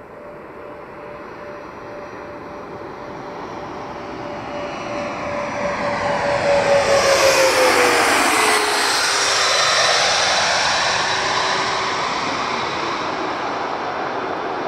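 Landing aircraft passing low overhead on approach: its engine noise builds, peaks about seven seconds in, then slowly fades. A steady engine tone drops in pitch as the aircraft goes by.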